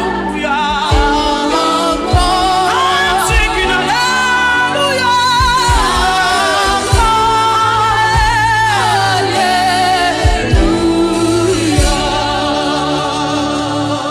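Gospel worship music: sung vocals with vibrato over sustained bass notes and drum beats.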